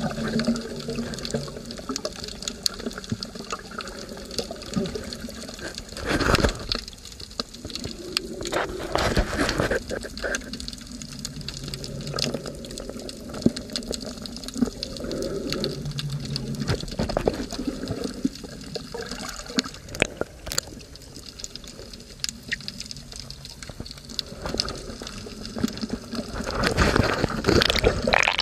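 Underwater sound as picked up by a submerged camera: a steady muffled water wash with a few scattered knocks, growing louder near the end.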